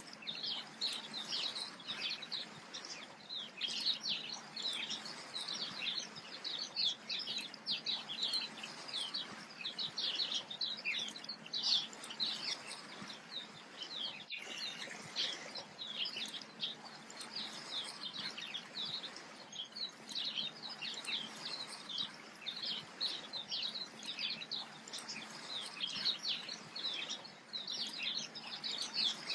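A busy chorus of small birds chirping, many short high calls overlapping continuously over a faint steady hiss, with a brief dropout about halfway through.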